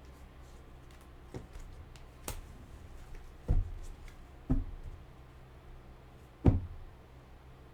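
Hands handling things on a tabletop: about five soft knocks and taps a second or so apart, the loudest near the end.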